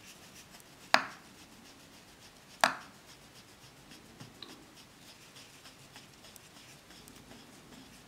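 Small twist drill bit turned by hand, boring into a white plastic model wall with faint, irregular scraping ticks as it cuts. Two sharp clicks stand out, about a second in and again about a second and a half later.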